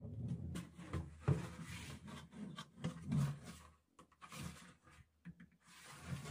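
An empty plastic drum being handled and turned over on a table top: irregular scraping and rubbing of the plastic with hollow knocks, one sharper knock about a second in, then a quieter stretch.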